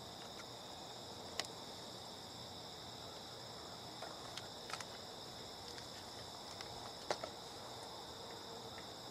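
Steady high-pitched insect chorus in the surrounding grass, with a few faint clicks from a plastic plug and cable being handled as the compressor lead is plugged into the battery pack.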